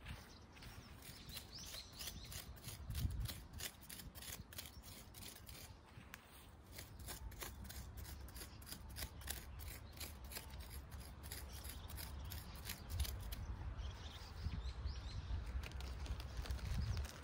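Weeds and grass being cut by hand close to the ground: a run of crisp snipping cuts, about three a second, that thins out near the end.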